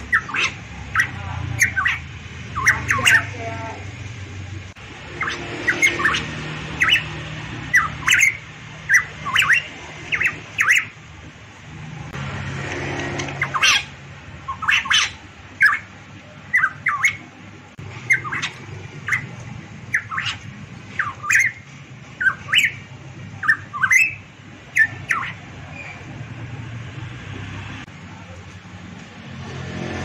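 Caged variable pitohui calling: a long run of short, sharp notes, one or two a second, with a break of a few seconds near the middle; the calls stop a few seconds before the end.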